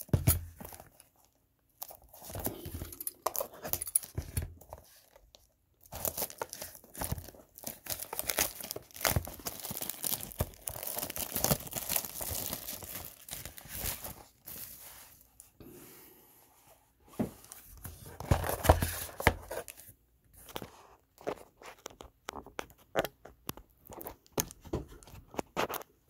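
Clear plastic shrink wrap being torn and crinkled off a cardboard trading-card box, in irregular crackly bouts with short pauses between them.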